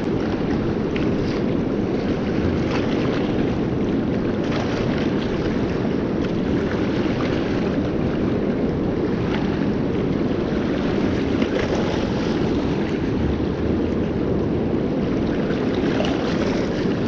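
Fast-flowing river rushing and churning over a riffle, a steady low rush of water mixed with wind buffeting the microphone.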